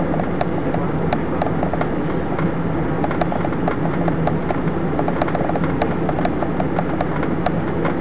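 Steady cabin noise of an airliner in flight: a dense rushing noise with a low, even hum under it, and small irregular clicks and ticks scattered through it.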